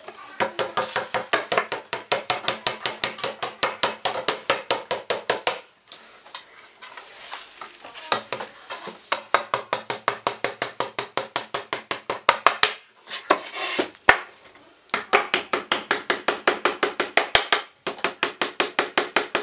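A ratchet wrench being worked on a particleboard drawer: quick, even clicks, about five a second, in runs of a few seconds broken by short pauses.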